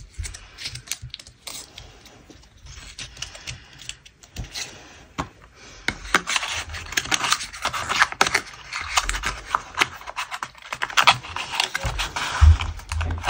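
White paperboard EarPods box and its card insert being handled by hand. Scattered taps and scrapes, then denser rustling and scraping of card from about halfway through, with a few dull thumps near the end.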